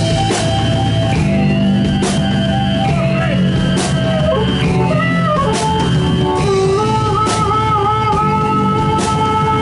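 Live blues rock band playing at full volume: electric guitar lead with long held notes that slide and bend, wavering with vibrato late on, over bass guitar and drums with cymbal crashes.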